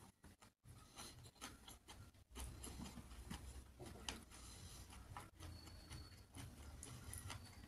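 Faint eating sounds: scattered small clicks and squishes of fingers working through rice and fish curry on a plate.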